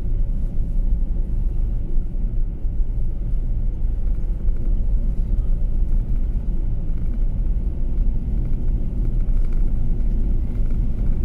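Converted camper van driving along a highway: a steady low rumble of engine and road noise with no change throughout.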